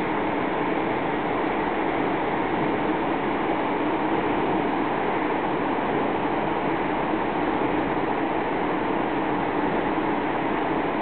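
A river rushing: one even, steady noise with no separate events.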